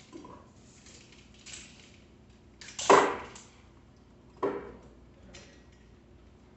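Hand tools and bicycle parts being handled during bike assembly: a few scattered knocks and clatters. The loudest comes about three seconds in and another about a second and a half later.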